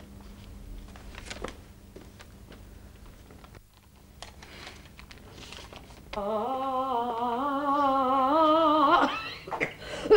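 Quiet room tone with a faint steady hum, then about six seconds in a woman sings one long held note with vibrato for about three seconds, sliding upward at the end before breaking off, as in vocal practice.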